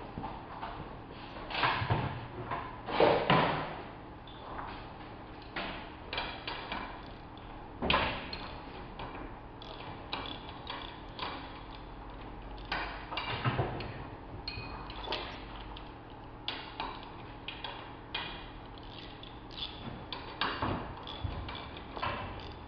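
Irregular metal clanks and knocks from a spanner working on the fittings of a Baileigh RBD25 manual tube bender, trying to free a bent steel tube jammed in the die. The loudest knocks come in a cluster a few seconds in.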